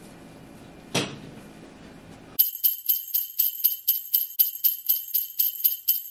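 Sleigh bells shaken in a steady rhythm, about four shakes a second, starting suddenly a couple of seconds in. Under the bells the room sound drops away, as with a sound effect laid over the recording. Before the bells there is faint room sound with a single knock about a second in.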